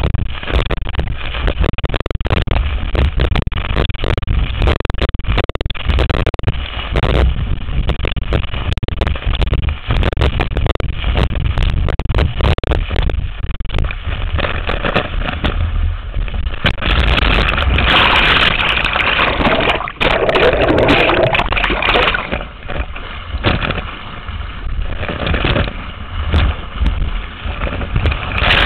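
Wind buffeting a microphone mounted on a planing windsurf board, with water spray spattering and the hull slapping through chop. A louder rush of spray comes about two-thirds of the way through.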